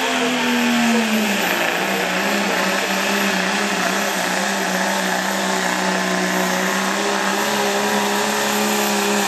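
Dodge Ram pickup's Cummins diesel engine running flat out under load, dragging a pulling sled. Its pitch drops a little over the first second and a half, then holds steady.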